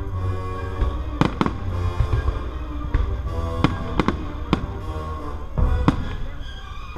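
Aerial fireworks shells bursting in a string of about eight sharp bangs over a low rumble, against orchestral music playing throughout.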